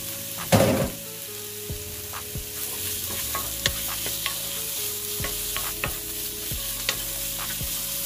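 Chopped mushrooms, peppers and onions sizzling in a nonstick frying pan while a wooden spatula stirs them, with scattered scrapes and clicks. There is a louder bump about half a second in.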